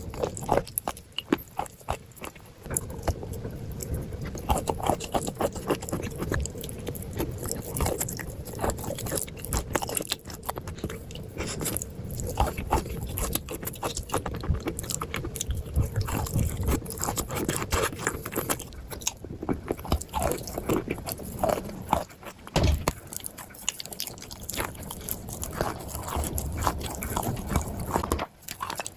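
Close-up crunching and chewing of dry clay: dense, irregular crackles as the clay is bitten and ground between the teeth.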